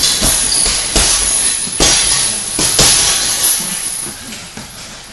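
Grapplers scuffling on training mats close to the microphone: surges of rubbing and scraping about once a second, each fading off, with dull thuds of bodies against the mat.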